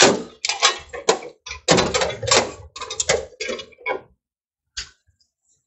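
Handling noise: a dense run of irregular clicks and knocks as a meter, test leads and capacitors are moved about in a sheet-metal electrical box, easing off after about four seconds, with one more click near the end.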